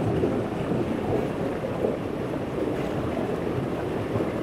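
Steady rushing of a flowing river over rocks, an even low noise without distinct events.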